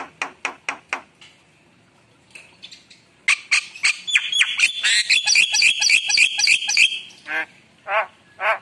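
Javan myna calling: a quick run of short harsh notes, a pause, then from about three seconds in a dense, loud string of squawks and whistled notes, ending in a few separate harsh calls.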